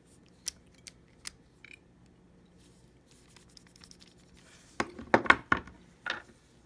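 A small screwdriver and bit set being handled: a few light clicks in the first two seconds, then a quick run of sharper clicks and rattles about five seconds in, and one more click near the end.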